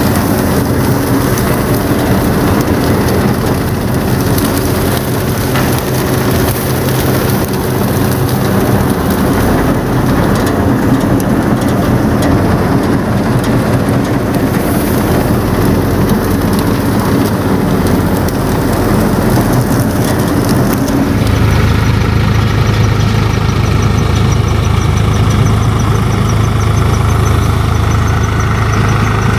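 Sonalika 745 III tractor driving a thresher under load: a dense, loud rushing of straw being fed through and threshed over the engine. About 21 seconds in the sound changes abruptly to a steadier low engine drone of the tractor working the running thresher.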